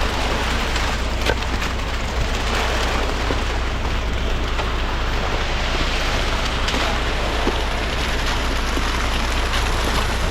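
Concrete truck running, with a steady rushing of wet concrete sliding down the chute over a low engine hum.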